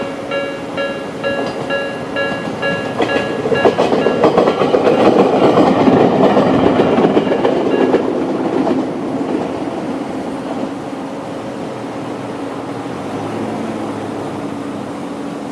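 Level-crossing electronic alarm bell in the Tobu-style tone ringing about three times a second while a Jomo Electric Railway 700-series electric train passes, its wheels clacking over rail joints. The bell stops about eight seconds in and the train's running noise fades to a low hum.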